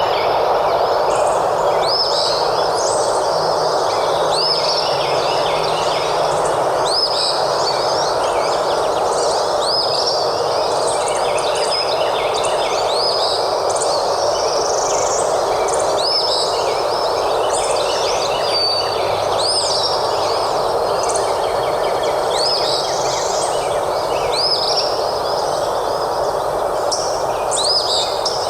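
Forest ambience: several birds calling and chirping, with short rising notes repeating about once a second, over a steady rushing background noise.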